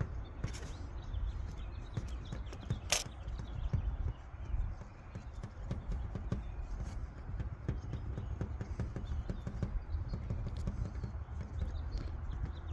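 Irregular light taps and clicks of fingers pressing and patting a patch of epoxy putty onto a steel truck roof, over a steady low rumble.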